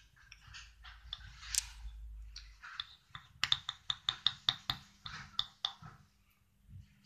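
Coloured pencil scratching back and forth on a bauble as it is shaded in, then a quick run of about ten sharp ticks, about four a second, as the strokes go on.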